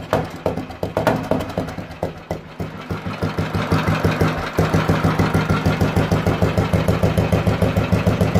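1984 Royal Enfield Bullet 350's single-cylinder four-stroke engine idling through its exhaust, a slow, even thump. The beat is uneven at first, then becomes louder and steady about halfway through, at about eight beats a second.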